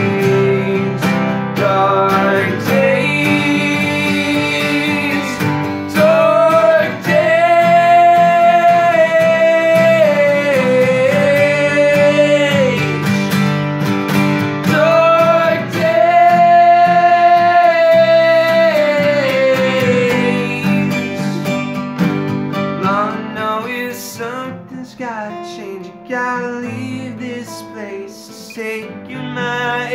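Two acoustic guitars, one a Fender, strummed together, with long held vocal notes sung over them through the first two-thirds. In the last third the singing drops away and the guitar playing grows quieter and sparser.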